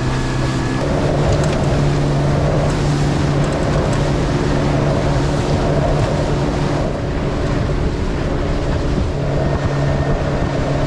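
Motorboat engine running steadily under way, with water rushing past the hull and wind buffeting the microphone.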